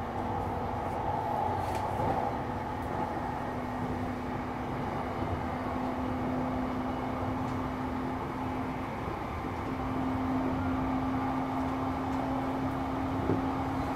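Running sound heard aboard a JR East Shonan-Shinjuku Line electric commuter train under way: a steady rumble of wheels on rail with a steady low hum, which shifts slightly higher about nine seconds in.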